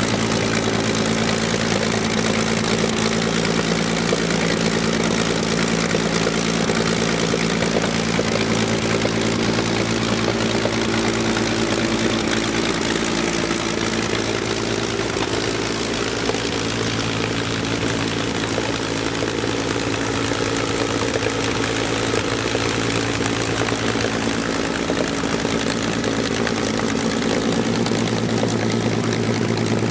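Rolls-Royce Griffon V12 aero engine of a P-51 Mustang racer running steadily on a ground test run, its propeller turning: the first run of the freshly rebuilt engine.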